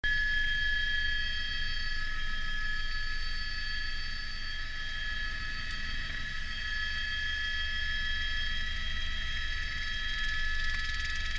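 Helicopter in flight, heard from on board: a steady high turbine whine of several fixed tones over a low rumble. It cuts in suddenly at the start.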